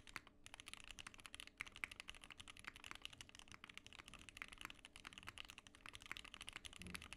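Fast, continuous typing on a Kira80 TKL custom mechanical keyboard with an aluminium plate, lubed and filmed Mauve switches and GMK keycaps. Keystrokes come in a dense run of several a second, with a brief pause just after the start.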